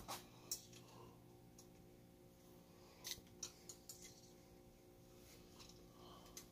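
Near silence with a few faint, sharp clicks and taps of small parts being handled and fitted on an RC monster truck chassis, a couple about a second in and a few more around three to four seconds in.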